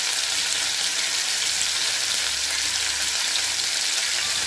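Meatballs, garlic and sliced red onion sizzling steadily in hot olive oil in a frying pan.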